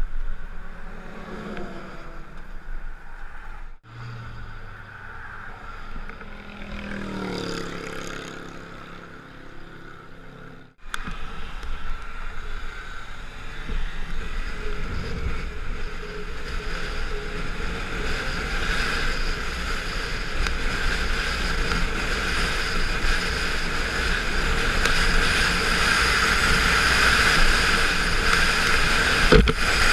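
Wind and road noise of a motorcycle riding along a highway, with wind rushing over the microphone and growing steadily louder over the second half. Earlier, passing traffic sweeps by with falling pitch.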